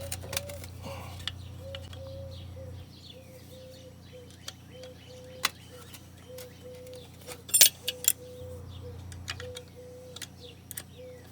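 Scattered metallic clinks and taps of hand tools and loose engine parts as a lawnmower engine's connecting rod is worked loose, the loudest a few sharp clinks in the middle. Birds chirp faintly throughout, and a short low note repeats about twice a second.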